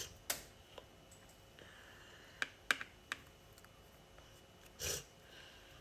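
Light, scattered clicks and taps of a paintbrush and paint pot being handled while dabbing paint onto a plaster volcano model, three quick clicks in the middle and a short rustle near the end.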